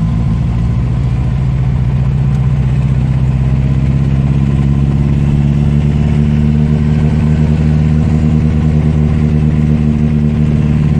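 1976 Datsun B211's A12 four-cylinder engine running steadily under load on a hill climb, misfiring because dirt or water has blocked the main jet of its Hitachi DCG 306 carburetor.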